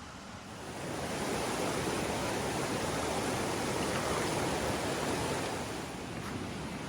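A river rushing, a steady water noise that swells about a second in and eases back near the end.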